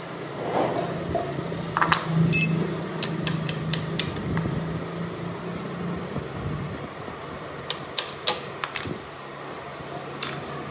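Metal tools and parts clicking and tapping irregularly, in two clusters a few seconds apart, over a steady low hum.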